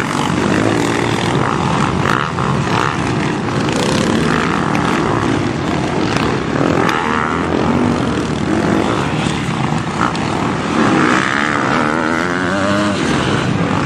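Motocross bikes racing, their engines revving hard and easing off again and again, the pitch rising and falling.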